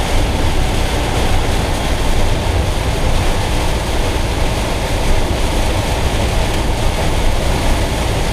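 Heavy rain pelting the roof and windscreen of a Citroën Jumper van driving on a motorway, a dense steady hiss over the low rumble of tyres and engine inside the cab.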